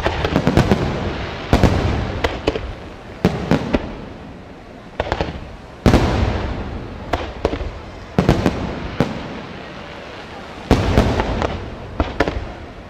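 Aerial firework shells bursting in quick succession, a dozen or more sharp bangs, sometimes in close pairs, each trailing off in a long echo.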